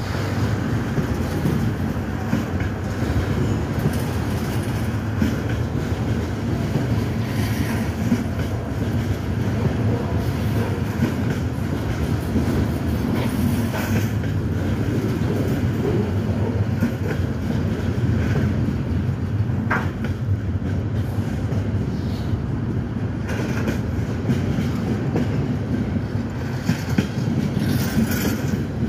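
Freight train cars rolling past below: a steady rumble of steel wheels on the rails, with scattered clacks over the rail joints.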